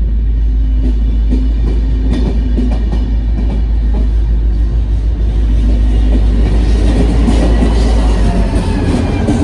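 A DSB ME-class diesel-electric locomotive's engine running with a heavy low drone as it propels a train of double-deck coaches past, with wheels rolling over the rails. The engine grows louder as the locomotive comes close near the end, and a faint high whine rises over it.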